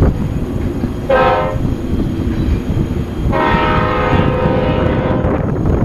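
BNSF diesel locomotive's air horn sounding twice, a short blast about a second in, then a longer one of about two seconds, over a steady low rumble.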